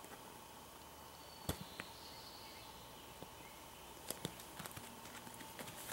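Faint clicks and taps of fingers working at the stiff plastic plug of an inflatable mattress's built-in pump valve. There are a couple of sharp clicks about one and a half seconds in, and a few more around four to five seconds in.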